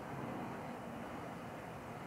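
Steady city street ambience: an even low rumble and hiss with no distinct events.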